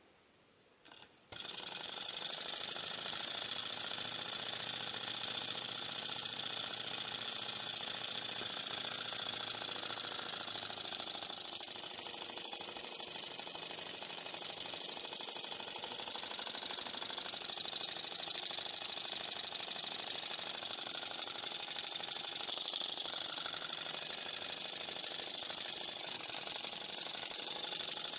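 Small candle-heated model Stirling engine started with a flick of its flywheel: a couple of clicks about a second in, then it runs at high speed with a steady, high-pitched mechanical whir from its piston and linkage.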